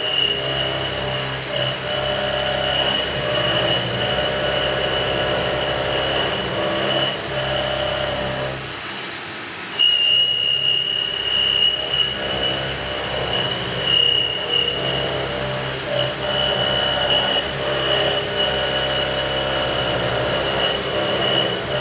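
CNC milling machine cutting a metal block with an end mill: a steady high whine from the spindle and cutter over the machine's hum and cutting noise. It dips for a moment about nine seconds in, then picks up again.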